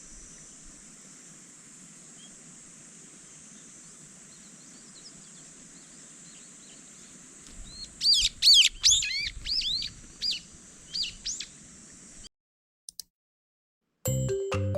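Small birds chirping, a quick run of loud sweeping calls starting about eight seconds in, over a steady high-pitched hiss. The sound cuts off suddenly, and music with xylophone-like notes starts near the end.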